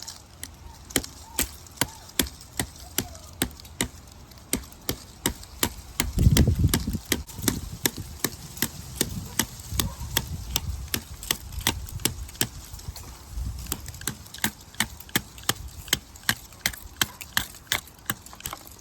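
Axe-and-hammer multi-tool striking repeatedly in a steady rhythm of about two to three sharp strikes a second, with a low rumble about six seconds in.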